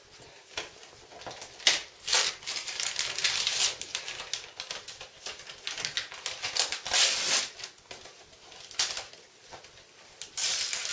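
Wrapping paper being torn and crinkled by hand as a present is opened, in irregular rustling bursts.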